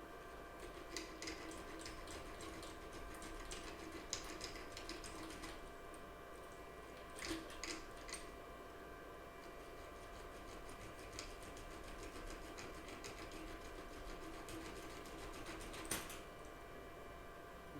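Faint, intermittent scratching of sandpaper on the plastic underside of a computer mouse's left-click button, with a few sharp clicks and taps of handling, over a steady faint hum.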